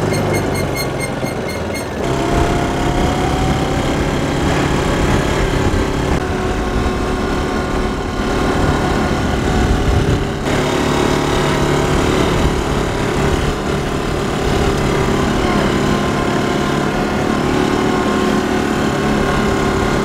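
Small off-road utility vehicle's engine running steadily as it drives along.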